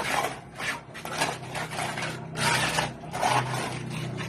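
Repeated rough scraping and rubbing strokes of a hand tool working cement on a concrete sink counter that is being tiled. The strokes are irregular, about one or two a second.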